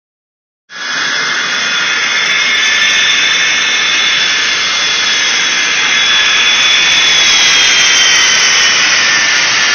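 Taxiing jet trainer's turbine engine with a loud, steady high whine that sets in under a second in; the whine slowly dips in pitch in the second half as the jet rolls past close by.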